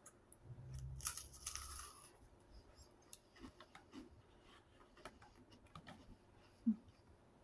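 A clear plastic snack tray crackling and clicking as it is handled, mixed with crunchy cracker chewing. There is a louder crackling stretch about a second in, then scattered light clicks.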